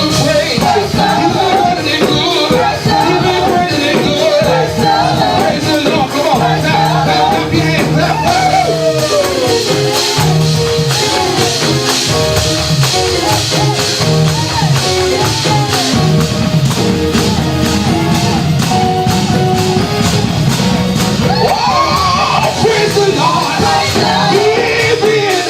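Gospel praise music with singing over a band, a steady beat and tambourine.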